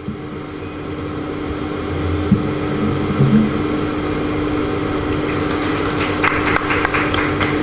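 Audience applauding, swelling over the first couple of seconds and then holding steady, with a steady hum underneath.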